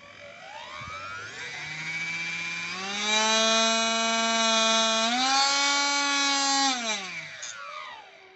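Brushless electric motor in a miniature diesel-engine model whining as it is throttled up. The pitch climbs in several steps to a high steady whine, then winds down and dies away near the end.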